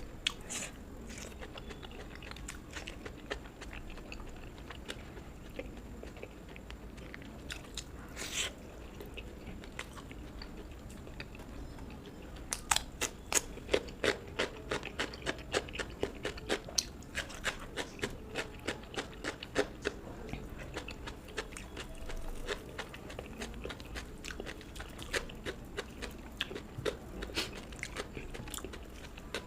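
Close-miked chewing of food with wet mouth clicks. From about twelve seconds in comes a quick run of crisp crunching bites, which then eases back to softer chewing.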